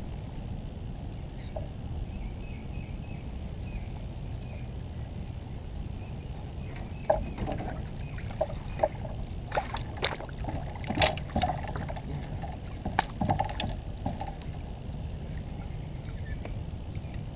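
A hooked redfish splashing at the surface beside a kayak. There is a cluster of sharp splashes and knocks from about seven to fourteen seconds in, over a steady low rumble of water.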